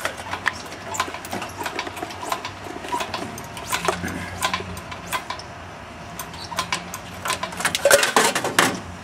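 Irregular metallic clicks and clinks of an engine crane and its lifting chain as an engine is hoisted out of a car's engine bay, with a quicker, louder cluster of clinks near the end.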